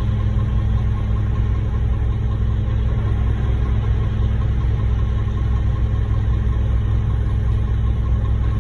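Heavy diesel truck engine idling steadily, a low even rumble that doesn't change.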